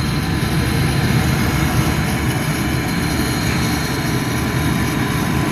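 Propane furnace running: a steady low rushing with a faint steady high tone over it.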